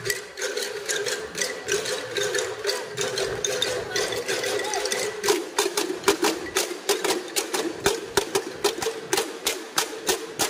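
A tultugan ensemble: large bamboo tubes on wooden stands struck with sticks, giving hollow, ringing wooden knocks. Many players strike together, and about halfway through the knocks sharpen into a quick, regular beat of roughly three to four strokes a second.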